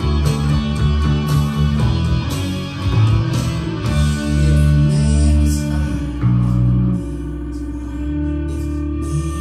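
Electric bass guitar picked with a plectrum, holding long low notes that change every second or so, over a rock song recording with guitar and vocals.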